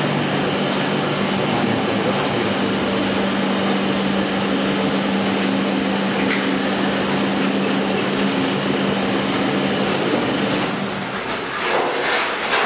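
Outer-tank production machine for solar water heaters running with a steady mechanical rumble and a low hum, which drops away about ten seconds in. A few sharp metallic knocks follow near the end.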